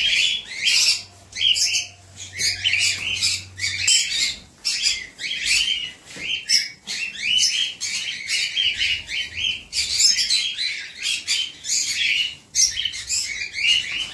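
A flock of caged pet cockatiels and lovebirds giving a constant stream of shrill, overlapping chirps, several a second. It is the restless calling of birds waiting to be fed.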